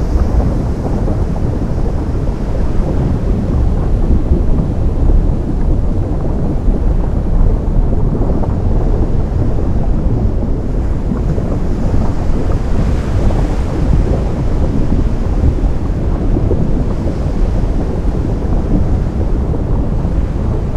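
Ocean surf and wind in a continuous deep rumble, with wind buffeting the microphone; a wave surges brighter about two thirds of the way through.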